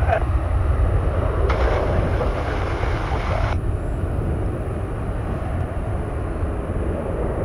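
Deep, steady rumble of a departing jet airliner's engines, slowly fading. About one and a half seconds in, a burst of hiss starts abruptly, lasts about two seconds and cuts off.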